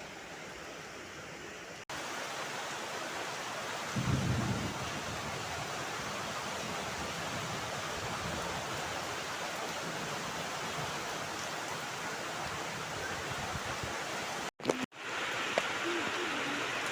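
Steady rain hiss that steps up in level after a brief dropout about two seconds in. A short low rumble comes about four seconds in, and the sound cuts out twice for an instant near the end.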